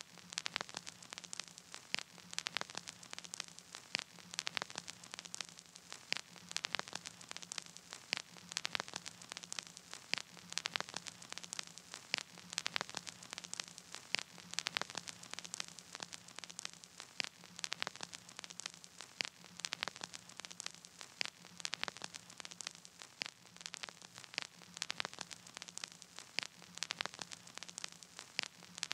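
Steady crackling static: a hiss packed with irregular sharp clicks over a faint low hum, with no music playing.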